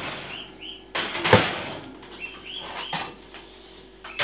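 Metal pizza pans and oven racks clattering and scraping as pizzas are moved between the racks of an open oven, with a sharp metal clank about a second in and a few short high squeaks.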